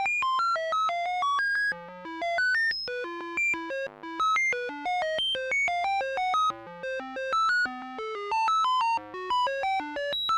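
Synthesized electronic tones in a rapid random sequence, about five or six short beeps a second jumping unpredictably between low and high pitches, like a sci-fi computer console sending data.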